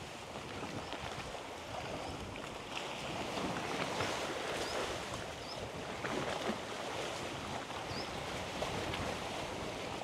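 Sea waves washing and splashing fairly strongly, a steady rushing noise, with a few short high chirps over it.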